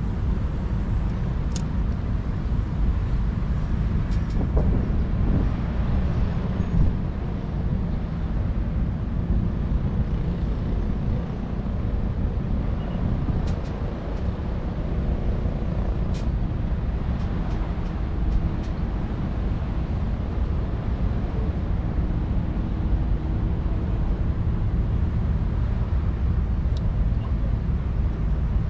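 Steady low outdoor rumble, with a few faint clicks scattered through it.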